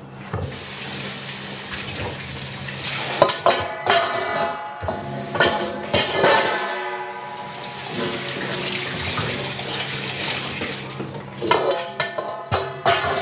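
Kitchen tap running steadily into a sink, with a few sharp clinks of dishes. A voice or music briefly rises over it three times.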